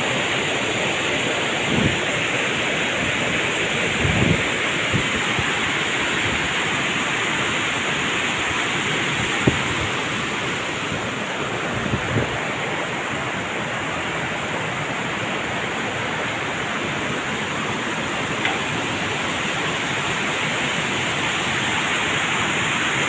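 Steady rush of river water pouring over a weir. A few brief low thumps break through it.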